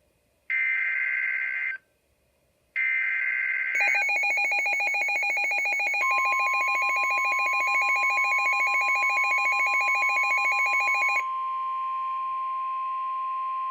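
Emergency Alert System broadcast tones: two short screeching bursts of the coded SAME header data, then a rapidly pulsing alert signal. A steady single-pitch attention tone joins about halfway through and keeps sounding after the pulsing stops.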